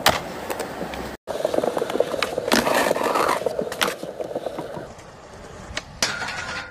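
Skateboard wheels rolling on concrete, with several sharp clacks of the board popping and landing. Near the end the board hits a ledge and scrapes along it in a slide.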